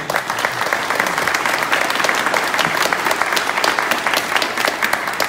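Audience applauding loudly, with many hands clapping densely and steadily.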